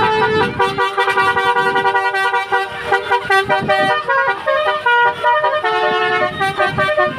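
Telolet horn on an odong-odong, its several trumpets sounding held notes that switch pitch every fraction of a second in a tootling melody, with low thuds underneath.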